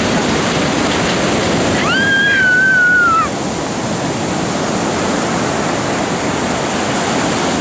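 Stormy sea surf: waves breaking and washing in as a loud, steady rush. About two seconds in, a brief high tone sounds for about a second and a half over the surf.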